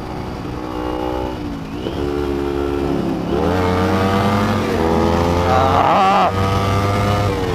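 Kawasaki Ninja 250 parallel-twin motorcycle engine under hard acceleration, heard from the bike: the pitch climbs and drops sharply at each upshift, about three shifts, with the engine running loudest near the end.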